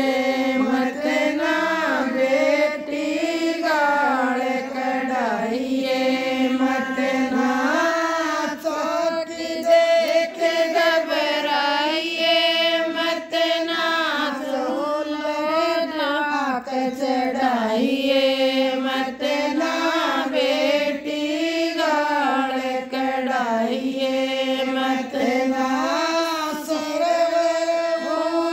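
A woman singing a Rajasthani jakhdi folk song, unaccompanied, in long, held, wavering melodic phrases.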